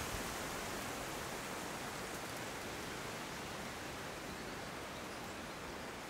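Wind rustling the leaves of the forest canopy: a steady hiss with no distinct events, easing slightly over a few seconds.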